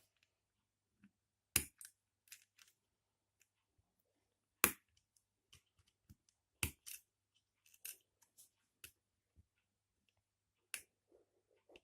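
Irregular sharp clicks and knocks, about five loud ones among fainter ticks, from the Inrico T320 network radio handset being handled.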